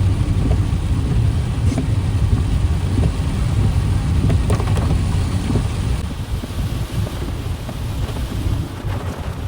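Typhoon wind buffeting the microphone: a loud, churning low rumble under a steady rush, with scattered light ticks. It eases slightly after about six seconds.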